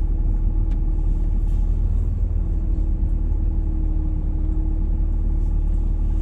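Steady low rumble of a vehicle driving on a snowy road, heard from inside the cab, with a steady drone running underneath.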